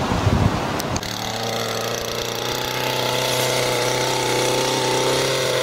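Wind buffeting the microphone, then, about a second in, a petrol strimmer's small engine idling steadily at one even pitch.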